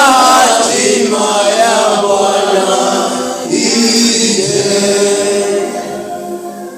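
A choir singing a slow worship song, the voices holding long notes, then fading down near the end.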